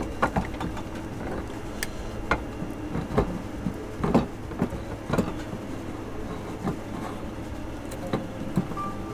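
Light metal clicks and taps, scattered and irregular, as the parts of a sailboat's steering pedestal are handled and fitted together, over a steady low hum.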